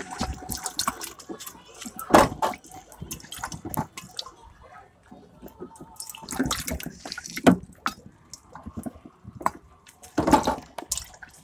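Bicycle being ridden, heard close from the handlebars: irregular small knocks, clicks and rattles as it rolls over bumps.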